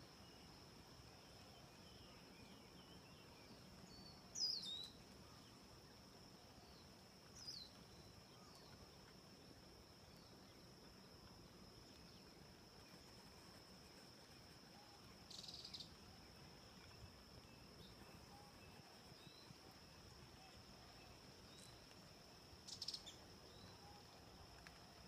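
Faint garden ambience: a steady, high-pitched insect drone, with four brief high bird chirps; the loudest chirp comes about four seconds in.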